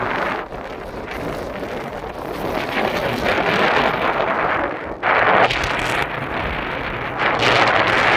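Wind blowing in gusts, a steady rushing that swells and eases, with sudden louder rushes about five seconds in and again near the end.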